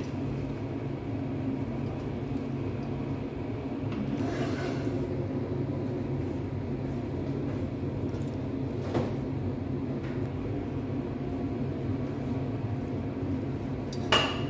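A steady low hum runs throughout, with a few brief knocks of a serving spoon and rice against a steel pot, the last near the end.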